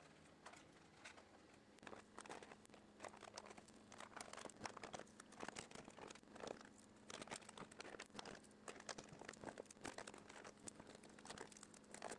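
Faint crinkling and ripping of blue painter's tape being pulled off the roll, torn and pressed down across the seams of a small wood-veneer kayak model, in a quick irregular run of small crackles that starts about two seconds in, over a faint steady hum.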